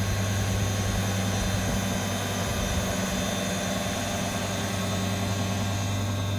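Large 200 CFM lake aeration air compressor running steadily: a constant low hum with a hiss over it.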